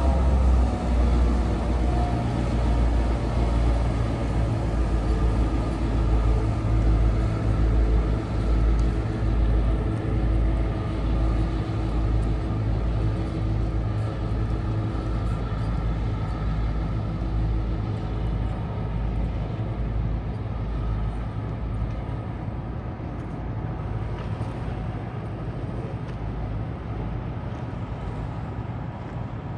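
Tugboat's diesel engine running under way, a deep, rapidly pulsing rumble that slowly fades as the tug moves off.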